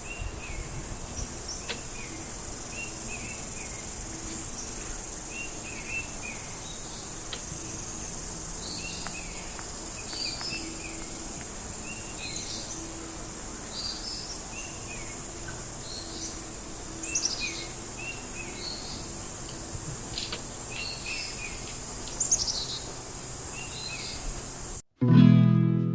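Birds chirping in short repeated calls, with a few quick falling whistles, over a steady high-pitched insect drone like crickets. Acoustic guitar music starts again about a second before the end.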